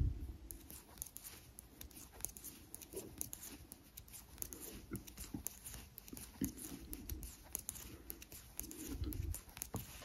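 Knitting needles working a row of purl stitches: faint, irregular small clicks with a little yarn rustle.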